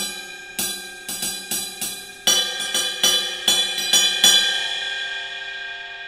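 Bell of a Masterwork Iris cymbal struck with a drumstick: about a dozen quick strokes over the first four seconds, louder from about two seconds in. Then the bell rings on in steady tones and slowly fades.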